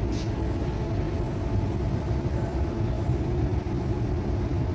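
Steady low hum of a Dubai Metro train car standing at the platform with its doors open, with a brief faint click right at the start.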